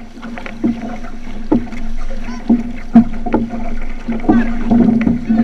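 Outrigger canoe under paddle: blades catching and splashing in the water about once a second, with water washing along the hull, over a steady low hum.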